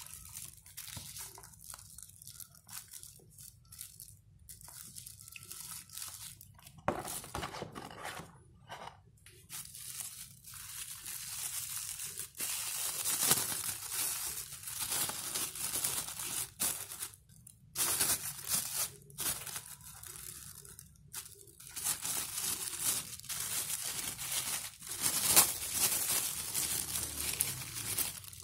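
Thin clear plastic wrapper crinkling and tearing as it is pulled open by hand, in irregular crackly bursts with short pauses.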